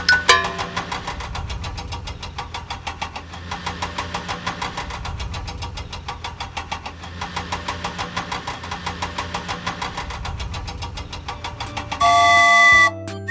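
Cartoon vehicle engine sound effect: a steady low hum with rapid, regular chugging knocks, followed near the end by a loud horn honk of about a second.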